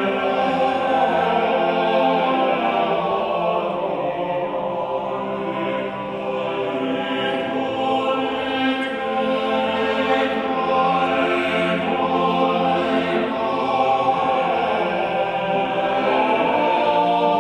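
Choral music: voices singing slow, long-held chords.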